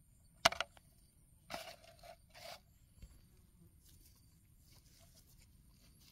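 A sharp knock on a thin plastic container as a large beetle grub is dropped into it, followed by two short scraping rustles. After that comes faint rustling from a gloved hand digging in loose soil.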